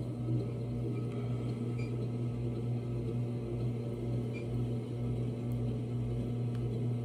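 Electric pottery wheel spinning at speed, its motor giving a steady, even hum.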